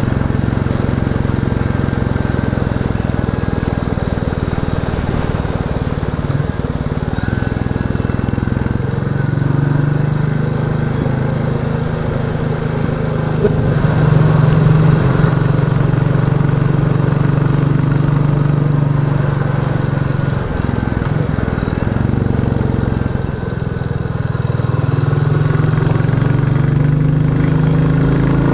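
Royal Enfield Classic 350's single-cylinder engine running under way through a Hitchcock's de-cat exhaust pipe, a steady note that eases off twice in the second half and picks up again near the end.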